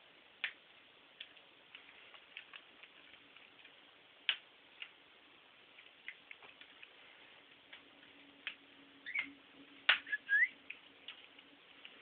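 Sparse light ticks and clicks around a cockatiel's water dish. A few short rising cockatiel chirps come about nine to ten and a half seconds in.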